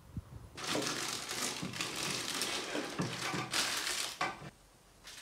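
Plastic wrapping crinkling and rustling as it is handled, starting about half a second in and going on in uneven surges until shortly before the end.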